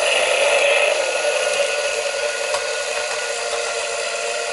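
Haynes clear-plastic model V8 engine kit running on its small electric drive motor: a steady whirring and plastic clatter of the turning crank, pistons, valvetrain and fan. The engine is running for the first time after assembly.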